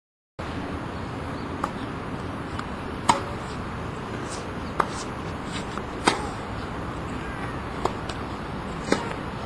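Tennis ball being struck by rackets in play: about half a dozen sharp pops, one every one to two seconds, over a steady background hiss. The sound cuts in abruptly after a moment of silence.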